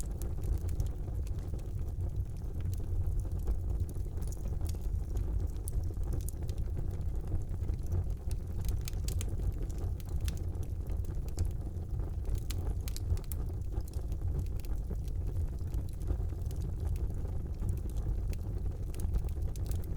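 Wood fire burning in a fireplace: a steady low rumble of flames with frequent sharp crackles and pops at irregular moments.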